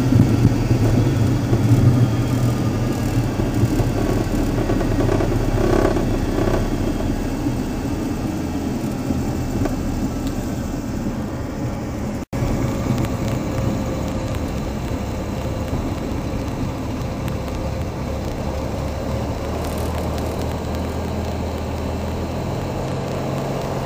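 Cirrus SR22's six-cylinder piston engine and propeller running steadily at low power, heard from inside the cabin, with the rushing rumble of the landing rollout dying away over the first several seconds as the plane slows. The sound breaks off for an instant about halfway through.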